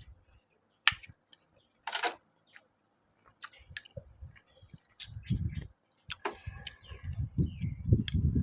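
Scattered clicks and taps of spoon and chopsticks against a noodle bowl, with a short slurp about two seconds in and low chewing sounds in the second half.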